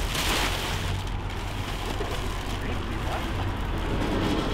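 Road traffic running steadily, with the plastic wrapping on a mattress crinkling and rustling as it is slid onto a metal utility trailer.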